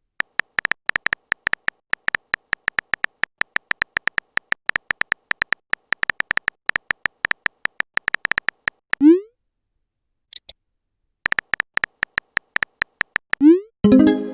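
Phone-chat typing sound effect: rapid key clicks, several a second, which stop about nine seconds in for a short rising swoop and a pair of high blips. The clicks then resume, and another rising swoop comes near the end, the kind of swoosh that marks a message being sent.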